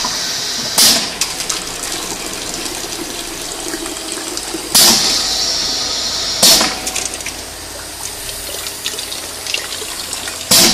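Pneumatic piston filling machine (Maksindo MSP-FL300) cycling: four sharp hisses of compressed air venting as its cylinder and valves switch, about a second in, twice close together in the middle, and once at the very end, over a steady hiss.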